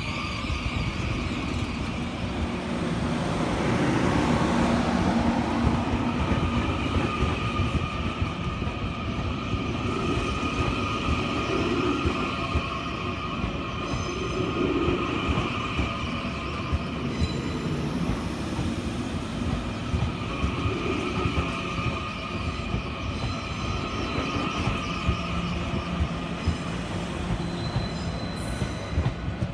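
Taiwan Railways TEMU2000 Puyuma tilting electric train pulling out of the station and passing close by, the cars rolling by with a steady rumble and a continuous high-pitched whine.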